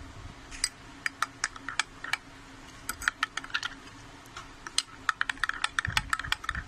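A metal spoon stirring milk and strawberry syrup in a glass, clinking against the sides in quick, irregular ticks.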